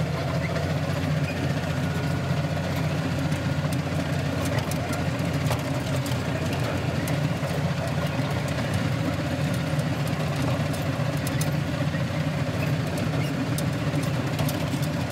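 Old bulldozer engine idling steadily, heard from inside the operator's cab, on its first run after sitting through the winter.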